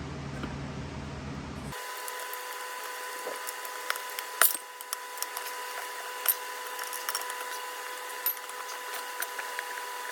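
Scattered metal clinks and scrapes of tire irons working a small golf cart tire against its rim on a tire changer, over a steady hum. The loudest clink comes about four seconds in.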